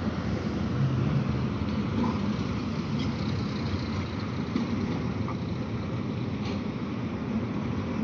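Diesel lorry engine running steadily as the truck is driven slowly across to another fuel pump.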